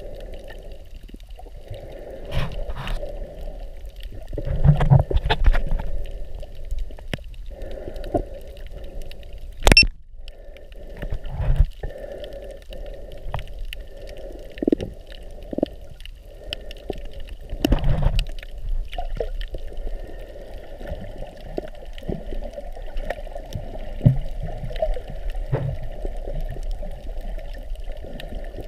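Muffled underwater water movement, sloshing and gurgling against the microphone, with irregular low thumps. One sharp click comes about ten seconds in.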